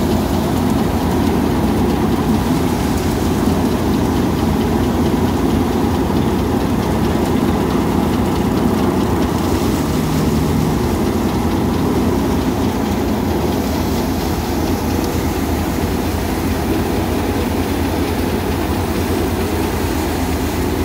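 Engine-driven paddy threshing machine running steadily: a constant engine drone under a dense, even rattle.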